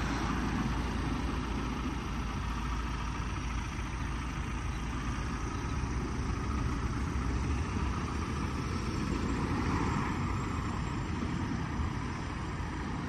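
Steady low vehicle engine rumble, a little louder about ten seconds in.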